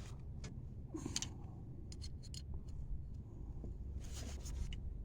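Faint small clicks and light scraping of an Allen key and the switched-off angle grinder being handled while the wheel guard is readied for adjustment, over a steady low hum.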